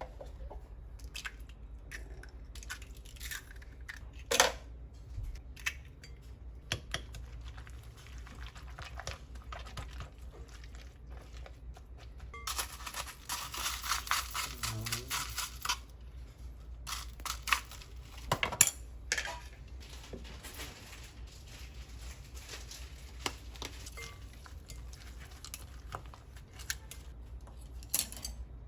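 Hands preparing food for crab-stick pancakes: scattered light clicks, taps and tearing sounds, with a few seconds of denser hissing noise about halfway through.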